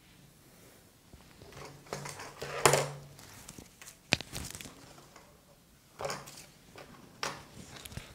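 Hands folding and smoothing fabric flat on a cutting mat: a few short rustling brushes, the loudest nearly three seconds in, and a sharp tap about four seconds in.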